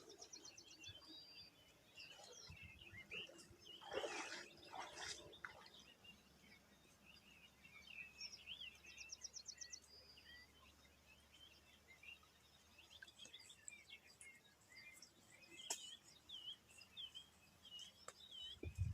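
Faint dawn birdsong: several small birds chirping, with a couple of quick trills. A louder, harsher call comes twice around four to five seconds in.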